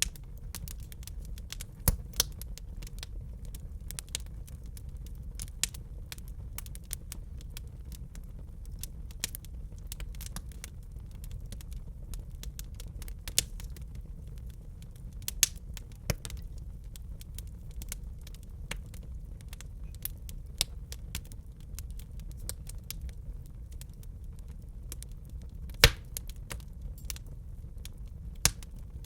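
Wood fire in a fireplace crackling, with irregular small snaps and a few louder pops over a steady low rumble of the burning.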